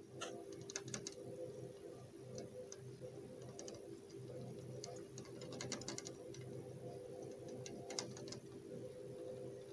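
Great peacock moth fluttering against a door's glass pane, its wings making irregular light ticks and taps, some in quick clusters, over a steady low hum.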